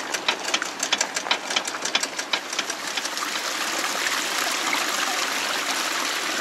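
Rapid, even mechanical clicking, about five a second, from a water-driven automaton's mechanism. After about two and a half seconds the clicking stops, and the steady rush of water running and falling down a narrow stone channel takes over, slowly growing a little louder.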